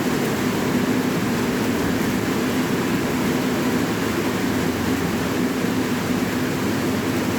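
Steady rain, a continuous even rushing with a strong low rumble and no separate drops standing out.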